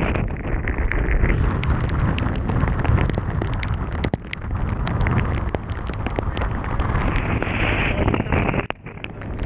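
Heavy wind buffeting the microphone of a small open boat running fast through rough chop in the rain, with many sharp ticks of raindrops and spray striking the camera. The noise briefly drops away near the end.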